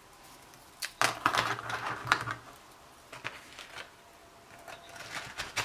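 Clear plastic packet crinkling and large metal paperclips clicking against each other as they are pushed back into the packet. A run of small clicks and rustles comes about a second in, fainter ticks follow, and more clicks come near the end.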